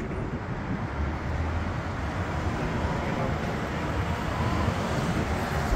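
Road traffic at a junction: a steady hum of vehicles with a low rumble, and a single-deck bus passing close in the second half, when the noise grows brighter.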